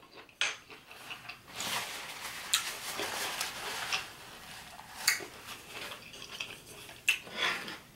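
Close-up eating sounds: a spoon knocking a few times against a plate, and a paper napkin rustling against the mouth for a couple of seconds in the middle.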